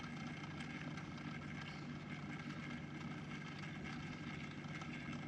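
Small motor of a rotating display turntable running, a faint steady hum with a few steady tones.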